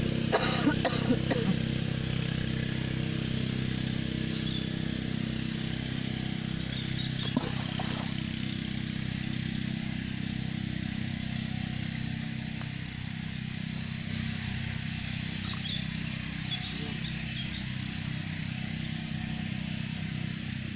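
Steady low engine drone, like a distant motor running without change, over outdoor background noise. A few light knocks sound about a second in, and one more near the middle.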